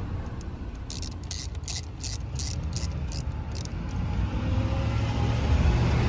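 Ratchet wrench clicking as it loosens the nut on a car battery's negative terminal, a run of sharp clicks about three a second. A low rumble grows louder near the end.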